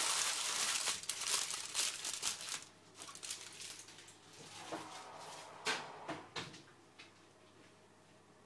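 Aluminium foil crinkling as it is scrunched tightly around a sweet potato for the first two and a half seconds, followed by a few scattered knocks and clicks.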